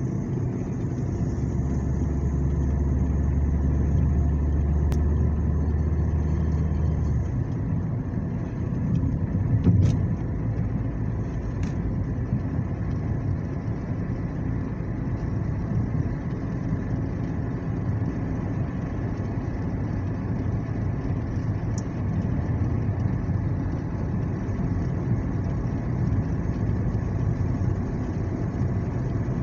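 Car engine and tyre noise heard inside the cabin while driving: a steady low rumble, with a brief thump about ten seconds in.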